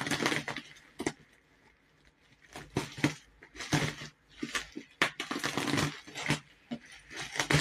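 Irregular handling noise: a string of short scrapes and rustles, unevenly spaced, with brief quiet gaps between them.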